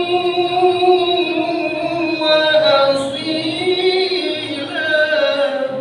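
A man's solo voice chanting Islamic devotional verses through a microphone, unaccompanied, in long drawn-out melodic phrases whose held notes bend slowly up and down.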